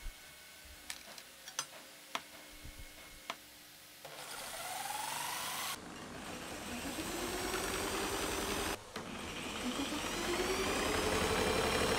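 A few light clicks and taps, then a small electric rotary tool starts up about four seconds in and runs, driving a homemade wooden scroll saw's reciprocating blade arm. Its pitch rises several times as it speeds up. The running sound breaks off abruptly twice and resumes.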